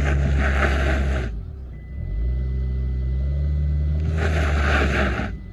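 Car engine revving hard while its drive wheels spin on snow, the spinning tyres giving a loud hissing whir in two spells, at the start and again near the end; the engine eases off for a moment about a second and a half in, then rises again. The car is stuck in a snowy ditch and the wheels cannot get grip, so the car slides instead of moving.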